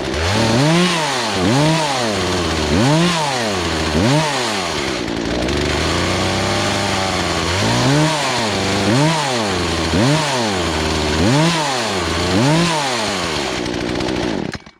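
Poulan Pro two-stroke chainsaw engine revved up and down over and over, about once a second, with a steadier stretch midway, cutting off suddenly at the end. The high-speed carburetor screw is being turned counterclockwise as it revs, because the engine runs starved at full throttle and wants to stall.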